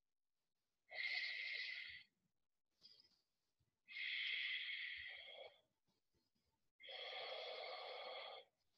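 A woman breathing audibly, three long breaths a couple of seconds apart, each lasting one to two seconds, while holding a yoga lunge with arms overhead.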